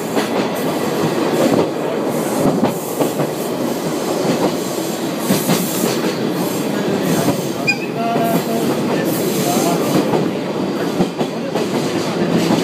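Train carriage rolling along the track, heard from inside an open-air car: a steady rumble and rattle with wheels clacking over rail joints. A brief faint squeal comes about eight seconds in.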